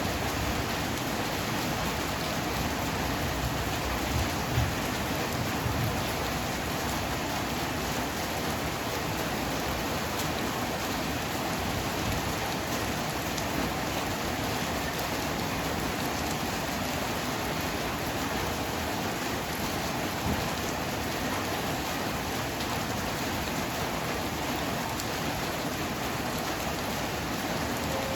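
Heavy rain falling steadily as a dense, even hiss, with a couple of brief low thumps about four and a half seconds in.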